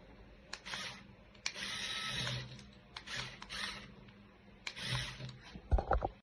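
Small electric motors of a remote-control Lego Technic crane whirring in four short bursts, each starting with a click, followed by a few low knocks near the end.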